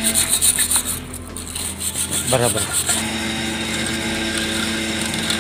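Hand wire brush scrubbing rust off an old steel bench vise in quick back-and-forth strokes for about the first three seconds. After that a steady hum carries on.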